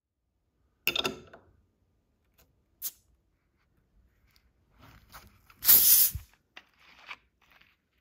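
Screw cap twisted off a plastic 2-liter soda bottle: small crackling clicks as the seal breaks, then a loud hiss of carbonation escaping about halfway through, followed by more light clicks of the cap turning. About a second in there is a brief ringing clink.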